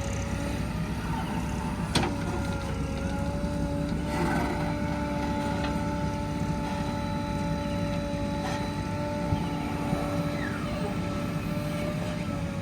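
Diesel engines of heavy earthmoving machinery running steadily, a low rumble with a steady hum over it. There is one sharp click about two seconds in.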